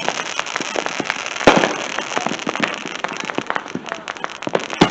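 Fireworks going off: a steady scatter of sharp pops and crackling, with one louder bang about a second and a half in.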